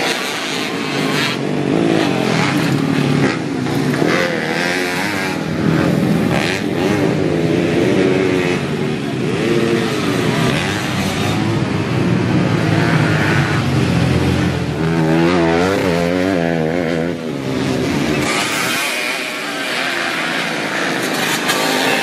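Kawasaki Ninja–engined trail motorcycle being ridden, its engine revving up and falling back again and again as the rider works the throttle.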